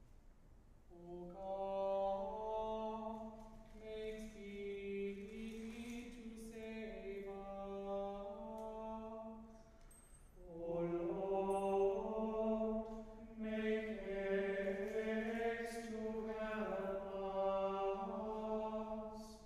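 A small choir chanting plainchant in unison, all voices on one line. It goes in two long sung phrases, with a short breath pause about ten seconds in.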